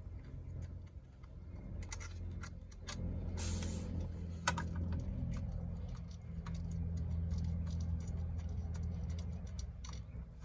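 Small metal clicks and taps of hand tools and bolts as e-bike fender braces are fitted, including two sharp metallic clinks about four and a half and six and a half seconds in. A steady low rumble runs underneath.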